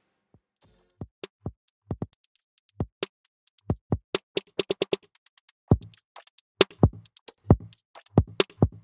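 A drum loop heard only through the delta output of the Spiff adaptive transient shaper: just the drum hits' attack transients, short clicks and thuds with nothing in between. It starts near silent and grows louder as the boost depth is turned up.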